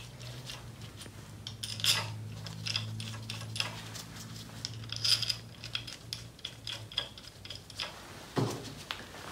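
Light metal clicks and clinks of small Allen screws and steel pump parts being handled and set into the transfer pump's air-motor plate, many short irregular taps. A steady low hum runs underneath and fades out about seven seconds in.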